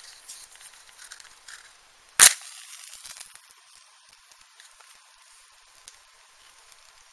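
A match struck on the side of its box: one sharp scrape-and-flare about two seconds in, then a short hiss as it catches and fades. Before it, light rustling and clicks of the matchbox being handled.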